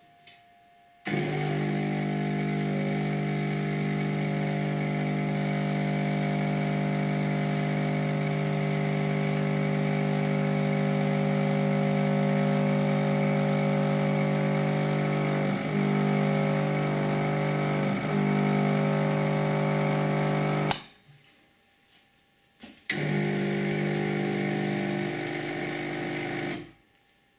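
Lelit Elizabeth espresso machine's vibratory pump humming steadily as it pushes water through the coffee puck for a shot. It stops about 20 seconds in with a sharp click and a short hiss as the brew valve releases. After a pause of about two seconds the pump hums again for about four seconds.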